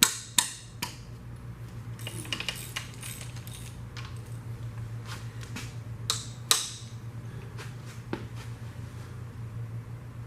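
Metal tools and engine parts clinking and knocking as they are handled during engine teardown. Sharp clinks come in scattered groups: the loudest right at the start, a quick run of them a couple of seconds in, and two more about six seconds in.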